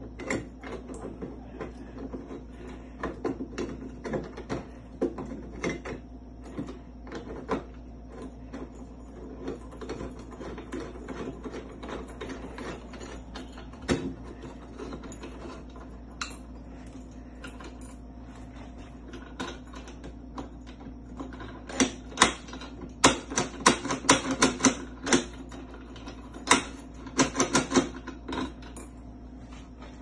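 Metal clicking and clinking of a brass mortise lock and its trim being handled and fitted into a door by hand, the clicks bunching into quick clusters in the second half. A steady low hum runs underneath.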